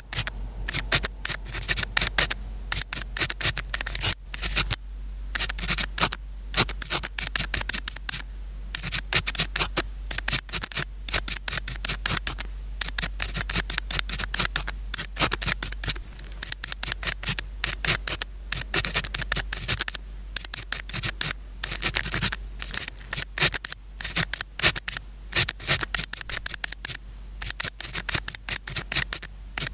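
Pen nib writing on paper, close up: quick scratching strokes in runs, with brief pauses between them.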